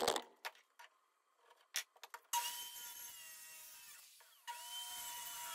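Handheld circular saw run twice, about two seconds each, with a steady motor whine, cutting the end of a laminated wooden rafter. A few light knocks come before it.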